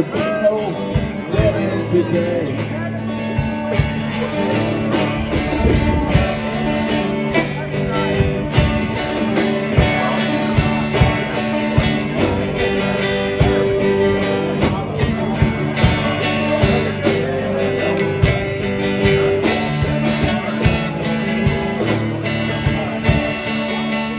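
Live rock band playing: drum kit with acoustic and electric guitars, the drums keeping a steady beat under sustained guitar notes.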